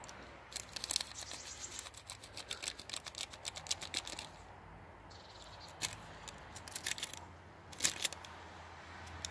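Paper being handled and crinkled: a dense run of sharp crackles for about four seconds, then a few scattered crackles.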